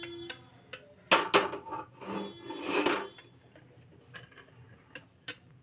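Metal kadhai being put on a gas stove: a sharp metallic clank about a second in that rings on, a rattling clatter of metal on metal about two seconds in, then a few light clicks near the end.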